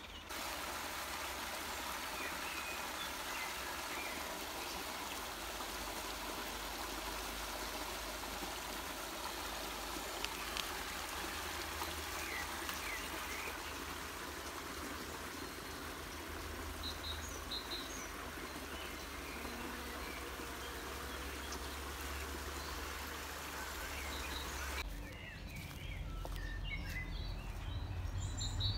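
Running water of a small stream, a steady rushing, with a few bird chirps over it. About four seconds before the end the water sound stops abruptly, leaving birds chirping more clearly over a low rumble.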